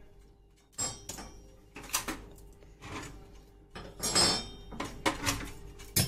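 Metal parts of a new gas stove's burners clinking and clattering as they are handled and set down: a string of sharp clanks, with a longer rattling scrape about four seconds in.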